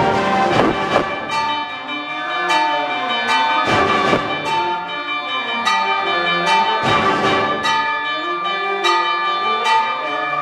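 High school concert band playing, with repeated bell-like strikes ringing out over held wind chords.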